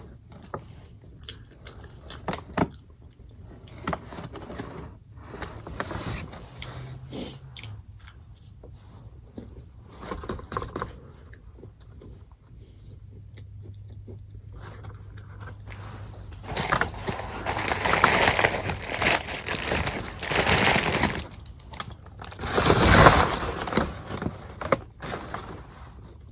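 Close-up eating sounds: chewing and crunching on crisp McDonald's hash browns, with small scattered crackles, then a louder stretch of crackly noise about two-thirds of the way in.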